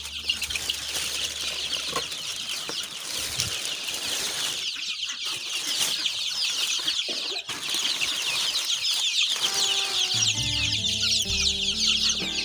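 A brood of about 25-day-old local (desi) chicks peeping continuously: a dense chorus of many overlapping high cheeps.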